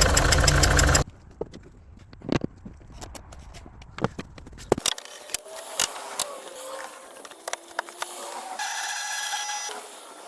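Ford Kuga engine running loudly after its injector seal repair, with an even ticking, then stopping abruptly about a second in. Scattered light clicks and scrapes follow.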